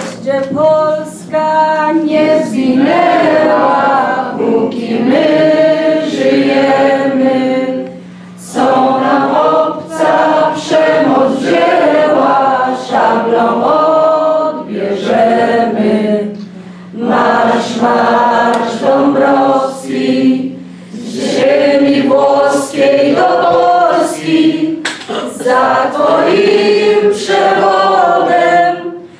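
A group of voices singing together without accompaniment, in sustained phrases with short breath pauses between them. A steady low hum runs underneath until about two-thirds of the way through.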